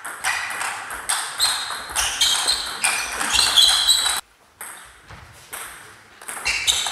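Table tennis ball clicking sharply off bats and the table in quick, irregular succession during a rally. There is a sudden lull just after four seconds, then the hits resume near the end.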